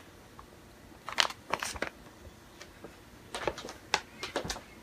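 A few light clicks and knocks over a quiet room background: a couple about a second in, then a quicker cluster near the end.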